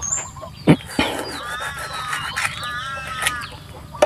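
Chickens calling, with a drawn-out wavering call in the middle. A sharp knock sounds just under a second in, followed by a click.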